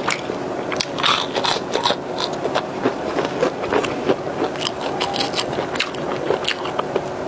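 A person chewing and biting into food close to a clip-on microphone, eating fried snacks and a burger: many short, crackly crunching and smacking clicks, irregular and without pause.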